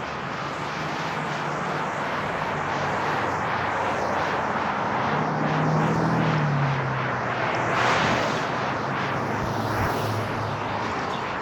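An aircraft passing overhead: a rushing engine noise that slowly swells, peaks about halfway through and eases off, with a low hum that drops slightly in pitch as it goes by.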